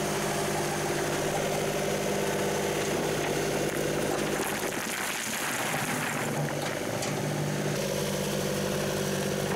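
John Deere 2038R compact tractor's three-cylinder diesel engine running steadily as the tractor carries a loaded front bucket of stone and dumps it.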